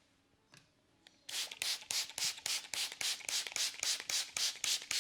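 Hands working rapidly over a person's hair and scalp in a head massage, starting a little over a second in: an even run of about five quick swishing strokes a second.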